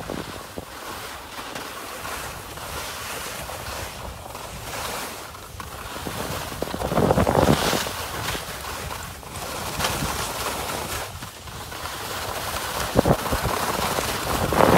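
Wind rushing over the microphone during a downhill ride, with the scrape of edges on packed snow, swelling louder about seven seconds in and again at the end.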